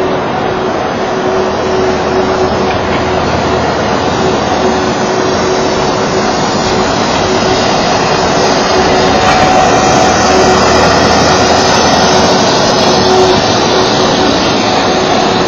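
Ice resurfacer running steadily with a constant hum, growing a little louder past the middle as it comes onto the ice.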